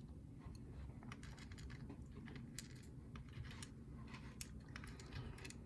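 Faint, irregular light clicks and taps of small metal lock parts and tools being handled and set down while a lock cylinder's core is sorted out.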